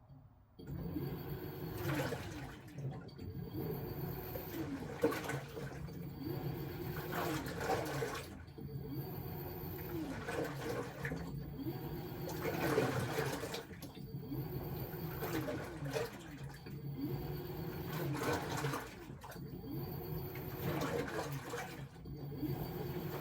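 LG T16MU top-loading washing machine agitating a load in water: the pulsator motor whine rises, holds and falls about every two seconds, over steady churning and sloshing water. It starts abruptly about half a second in.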